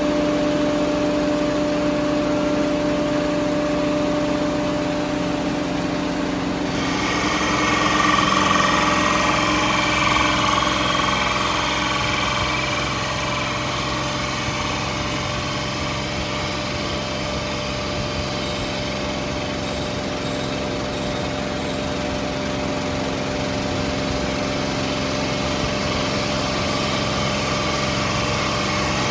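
CNC machine spindle running with a steady whine. About seven seconds in, the pitch shifts and a rougher, hissing sound joins, strongest for a few seconds before settling.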